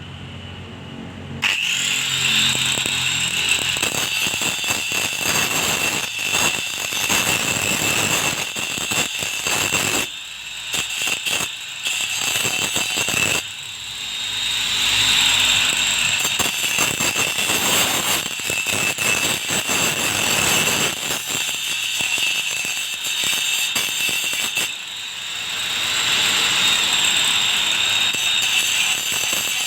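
Hand angle grinder sharpening a grass-cutter blade: a steady high-pitched motor whine with rough grinding noise as the disc works the metal edge. It starts about a second and a half in and eases briefly a few times.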